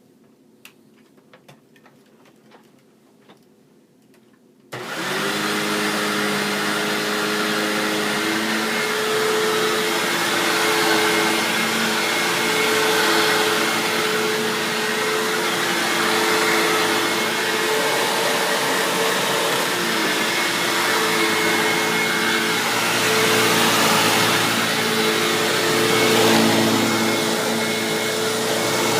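Purple Hoover U6439-900 upright vacuum cleaner switched on and running steadily at full power, a motor hum with several steady tones under a loud rush of air. It starts suddenly about five seconds in, after a few faint clicks.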